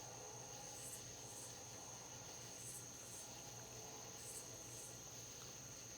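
Faint insect chirping: a steady high buzz with short chirps repeating every second or so.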